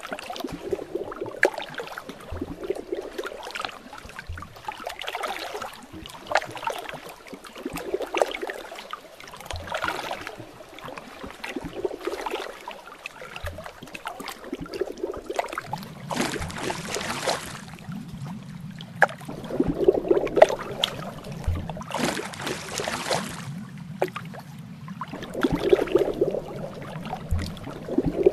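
Underwater ambience: water sloshing and gurgling in swells every second or two, with faint low thumps. About halfway through, a steady low hum joins, and two short hissing rushes come a few seconds apart.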